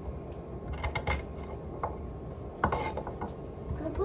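Kitchen knife slicing baby carrots on a wooden cutting board: short, irregular knocks of the blade meeting the board, a quick cluster about a second in and then single cuts.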